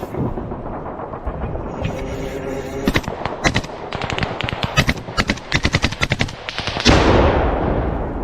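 Gunfire on a battlefield: irregular shots crack from about three seconds in. Then, about seven seconds in, a loud sudden blast hits and slowly dies away.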